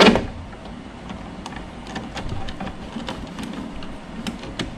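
A sharp knock, then scattered light metallic clicks from a ratchet and hex bit as the two small bolts holding a fairing speaker grill are started and turned in by hand.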